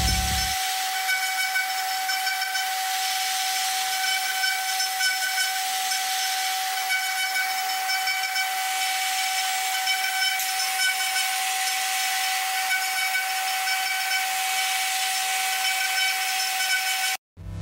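High-speed 2.2 kW spindle of a Woodpecker DP1212 CNC router, with an engraving bit cutting brass: a steady whine over a hiss. It stops abruptly near the end.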